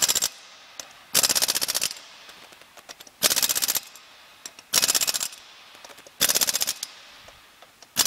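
Pneumatic impact wrench fitted with a torque stick, hammering wheel lug nuts down to torque specification. It runs in short bursts of rapid blows, about every one and a half seconds, one nut after another.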